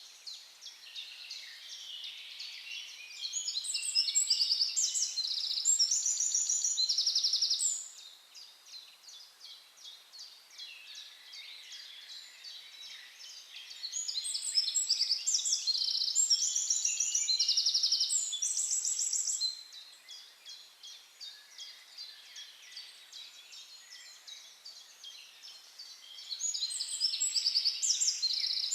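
Songbird song: loud bursts of rapid, high chirps and trills lasting a few seconds, coming back about every twelve seconds, with softer chirping in between.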